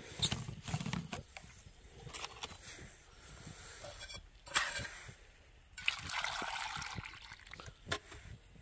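Water poured from a bottle into a metal cook pot: a short splash, then a steadier pour lasting about a second and a half, among light knocks of handling the pot.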